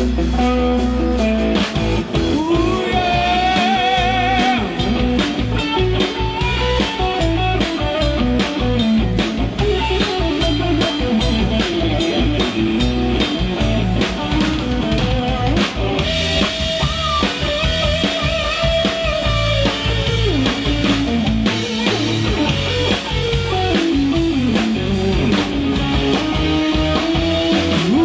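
Live rock band playing an instrumental passage: a guitar carries the lead over a steady drum-kit beat and bass.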